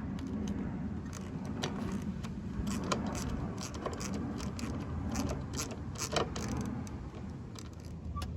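Small metal tools and parts clinking and clicking in quick irregular taps while working on a lawn mower, over a steady low hum.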